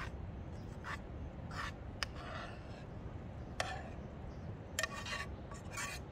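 Metal fork scraping and tapping against a frying pan while ramen noodles are served out of it onto a plate: a handful of short scrapes and clicks spread through, over a low steady background rumble.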